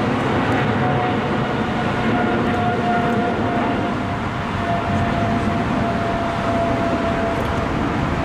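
Airbus A380-800's four Rolls-Royce Trent 900 turbofans running at taxi thrust: a steady rumble with a high engine whine that sinks slightly in pitch.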